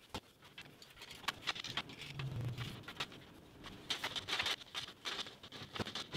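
Scattered knocks and clatter of wooden bed slats being handled on a bed frame, with a brief low hum about two seconds in.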